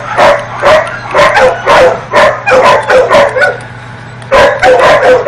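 Dog barking repeatedly, about two barks a second, with a short pause about three and a half seconds in before the barking resumes.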